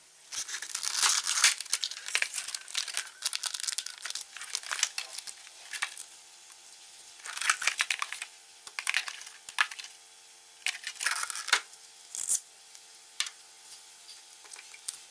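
Plastic packaging of a headlight restoration kit crinkling and tearing as it is opened and handled, in irregular bursts.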